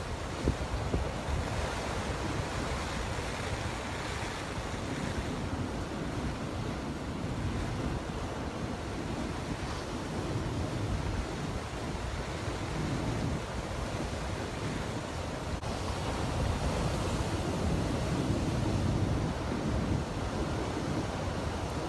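Heavy typhoon-driven surf breaking against and over a harbour breakwater, with strong wind buffeting the microphone. The surge swells louder about three-quarters of the way through.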